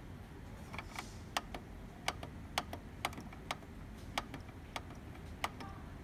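Plastic buttons on an Epson M200 printer's control panel clicking under a finger, about a dozen sharp clicks at roughly two a second. The buttons are pressed repeatedly to scroll down through the menu items.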